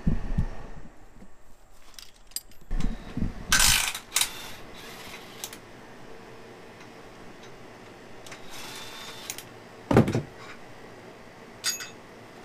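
Hand tools and metal engine parts clattering and knocking in scattered bursts, with one heavier thump about ten seconds in.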